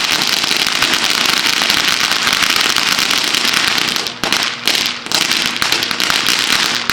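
Fireworks crackling: a dense, rapid run of small pops, like a string of firecrackers, that turns patchy with short gaps after about four seconds and stops right at the end.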